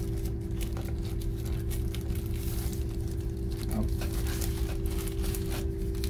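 Crinkling and rustling of a thin plastic protective sleeve being pulled off a DJI Mini 2 SE drone remote controller, in short scattered bursts over a steady low hum.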